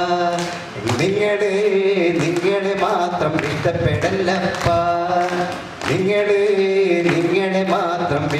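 A voice singing a slow melody in long held phrases, with a short break between phrases about a second in and again near six seconds, over a steady low accompaniment.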